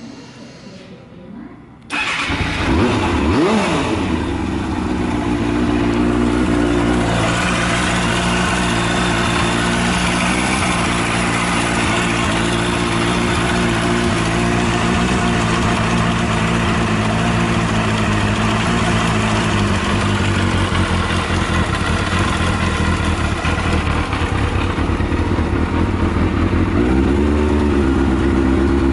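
Kawasaki Balius II's 250 cc inline-four, breathing through a titanium full exhaust, fires up about two seconds in, revs briefly and settles into a steady idle. It runs without any abnormal noise.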